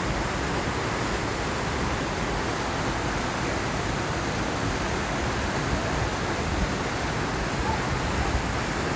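Waterfall on a mountain river: a steady, even rush of falling water.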